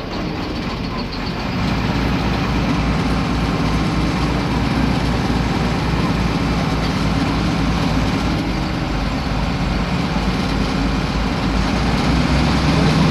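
The six-cylinder inline OM 366 LA turbodiesel of a Mercedes-Benz OF-1721 bus running steadily, getting louder about a second and a half in.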